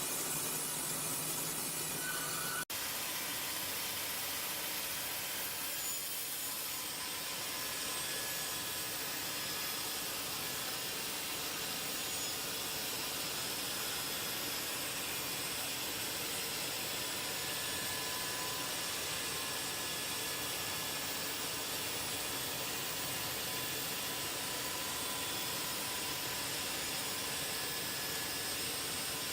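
Steady hissing machinery noise with no clear rhythm, broken by a momentary dropout about two and a half seconds in.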